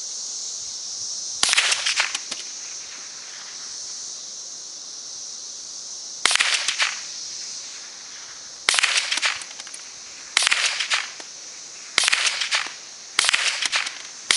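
Old Norinco .22 rifle firing CCI Mini-Mag rounds, six single shots spaced one to five seconds apart, each with a short echo. It keeps firing without a malfunction.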